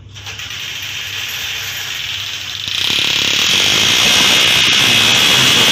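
Handheld electric drill boring into a ceramic-tiled wall, a steady high whirring grind that steps up louder and harsher about three seconds in.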